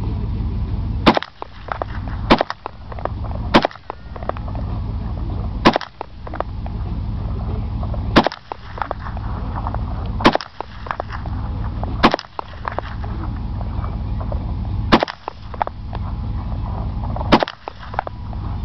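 AK-47 rifle in 7.62×39 mm firing single shots: nine sharp reports spaced one to three seconds apart, with a steady low rumble between them.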